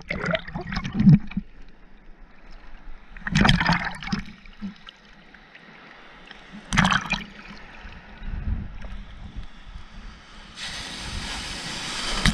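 Shallow sea waves washing over a camera at the water's edge: short splashes and sloshes every three seconds or so, then the hiss of foamy surf rushing over the microphone near the end.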